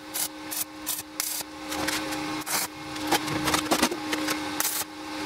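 Stick (arc) welding on steel: the electrode arc crackles and sputters in short, irregular runs. A steady low hum lies beneath.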